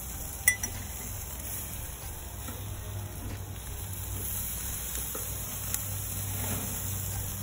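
Hamburger patties sizzling over charcoal on a grill grate, a steady hiss, with a sharp click about half a second in.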